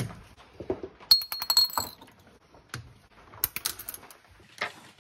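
Light metallic clinks and clatter of parts and tools as the electric motor is taken off a Porsche 968 window regulator, in two bunches, about a second in and about three and a half seconds in, each with a short ring.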